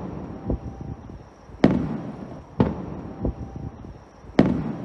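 Aerial fireworks shells bursting: three sharp bangs one to two seconds apart, each dying away in a low rumble, with softer thumps between them.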